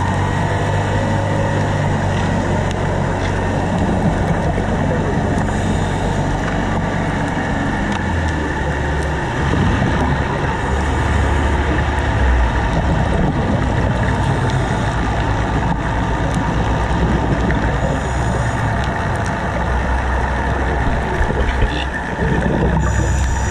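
Audio from a camera underwater on a scuba dive: a steady low rumble of water against the housing, with a hissing burst of exhaled bubbles from a diver's regulator about every five to seven seconds.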